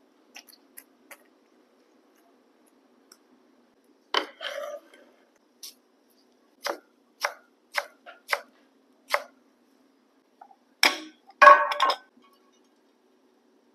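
Food-prep knocks on a plastic cutting board: a few faint clicks, then a louder knock and a run of about six short sharp knocks roughly half a second apart. Near the end comes the loudest sound, a clatter as a metal mortar and pestle and a pan are set down on the board.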